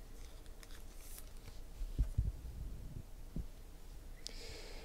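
Quiet handling of trading cards on a table: a few soft taps about two seconds in and again a little later, then a short hiss near the end.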